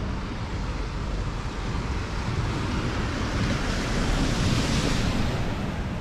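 Steady road and wind noise of a car being driven through town, swelling to a peak about four to five seconds in and then easing.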